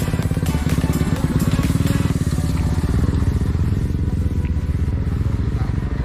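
Motorcycle engine running steadily, with music playing over it.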